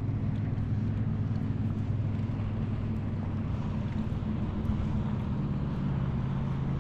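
Boat motor running steadily at low speed, its pitch stepping up slightly near the end.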